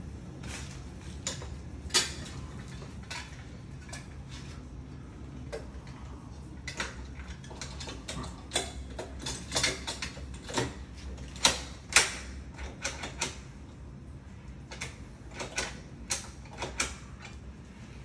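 Brass mortise lockset hardware being handled and fitted on a door: irregular clicks, taps and small metal knocks, the sharpest about two seconds in and again about twelve seconds in, over a steady low hum.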